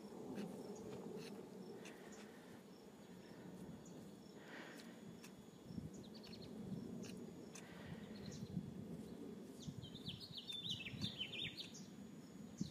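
Quiet outdoor ambience with a few soft swishes of a PVC primer dauber wiped around a pipe end. A bird gives a quick series of chirps about ten seconds in.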